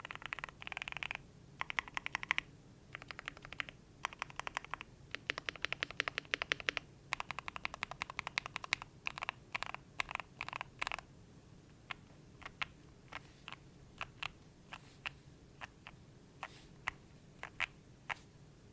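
Custom Cidoo Finalkey V65 keyboard with JWK JWICK Black switches, FR4 plate and PBT keycaps: quick runs of keystrokes on the stabilized long keys and on the G, H and J keys. From about twelve seconds in come slower single key presses, spaced apart, during the board's flex test.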